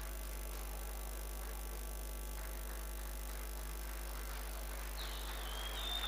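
Steady low mains hum from a live sound system, with no speech or music. About five seconds in, a high thin tone slides in, dips slightly and holds.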